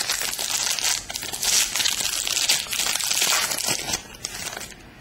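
Foil wrapper of a basketball trading-card pack being torn open and crinkled by hand. The crackling is dense for about four seconds, then thins out and stops near the end.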